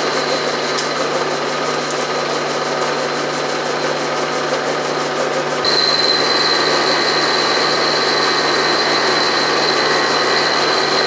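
Milling machine running with an end mill taking a slow-fed finishing cut in metal: a steady machining noise with a high whine that gets louder about halfway through.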